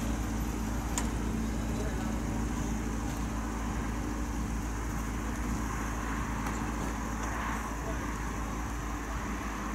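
Steady outdoor background of a low rumble with faint, indistinct voices and no clear single event.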